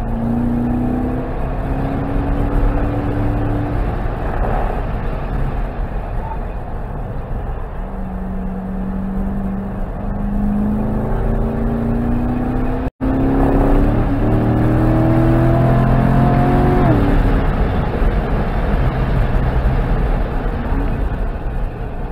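Chevrolet Corvette C7 Grand Sport's 6.2-litre V8 at full throttle on track, heard from the car itself. Its pitch rises in several long pulls and drops sharply about three quarters of the way in.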